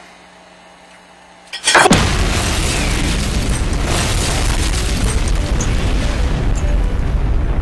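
An explosion: after a quiet stretch with a faint steady hum, a sudden loud boom comes about two seconds in and runs on as a long, deep rumble.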